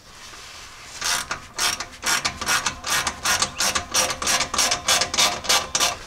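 Ratchet wrench clicking in quick, even strokes, about four or five clicks a second, starting about a second in, as it tightens the nut on a 3-inch exhaust band clamp.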